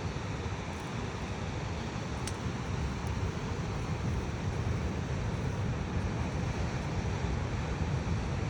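Steady wind noise on the microphone, a low, fluctuating rumble with a hiss over it.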